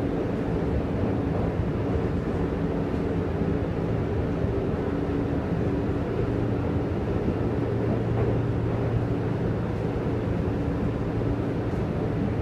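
Berlin U-Bahn train running, heard from inside the passenger car: a steady rumble and rolling noise with a low motor hum that swells for a few seconds midway.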